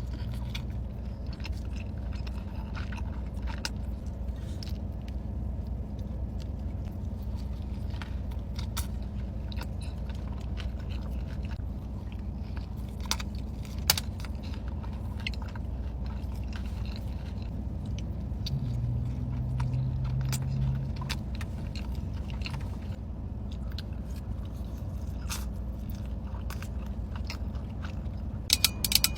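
Close-miked eating: chewing and biting with many short mouth clicks and crunches, over a steady low hum. A brief low humming tone sounds for about two seconds around two-thirds of the way through, and a few sharp clicks come at the very end.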